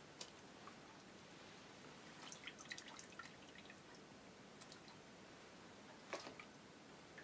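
A hand scooping lumps of freshly churned butter out of buttermilk in a plastic bucket: faint wet drips and splashes, bunched between two and three and a half seconds in. About six seconds in comes one sharper knock as the hand reaches into a steel pot.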